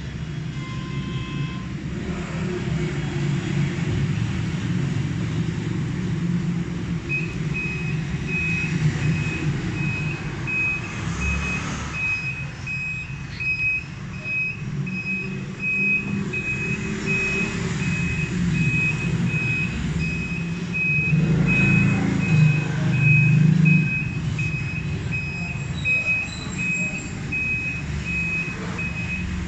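Electronic beeper on a Crown electric scooter, an even high beep about twice a second that starts about seven seconds in and keeps going, over a steady low rumble of background noise.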